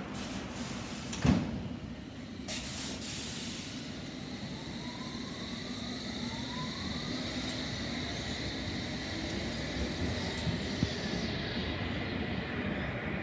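London Underground S Stock train pulling out of the platform. A single loud thud comes about a second in as the doors close, then the rumble of the train runs on with a faint whine that rises in pitch as it gathers speed.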